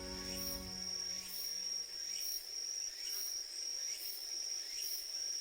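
Insects singing: one steady high-pitched trill, with a second insect pulsing about once a second. Background music fades out in the first two seconds.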